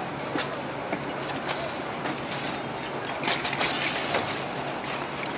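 Steady rushing noise with scattered sharp knocks and clatter, and a quick run of louder knocks about three seconds in.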